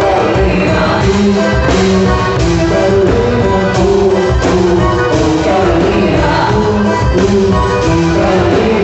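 Loud quadrilha junina music with singing over a steady beat.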